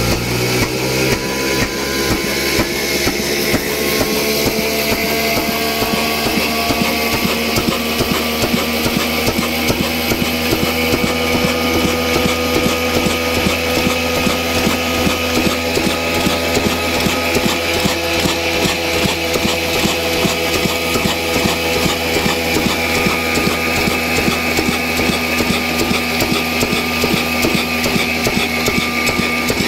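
Stationary oil engine with a heavy flywheel running with a steady, even knocking beat while it belt-drives a wheat grinding mill. A whine rises in pitch over the first few seconds as the machinery comes up to speed, then holds steady.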